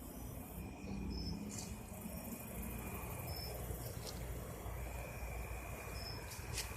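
Insects chirping: short high chirps every two to three seconds over a steady low rumble, with a few faint sharp clicks.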